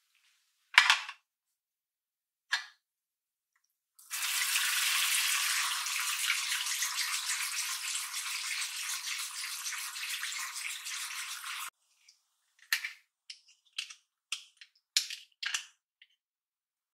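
Two sharp knocks of abalone shells being handled, then a wooden-handled bristle brush scrubbing abalone in water for about eight seconds, stopping abruptly. A run of light clicks and knocks follows as the shells are picked up and moved in the dish.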